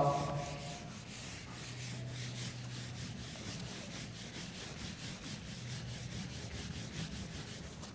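Whiteboard eraser wiped back and forth across a whiteboard, a soft, rhythmic rubbing made of many quick, repeated strokes.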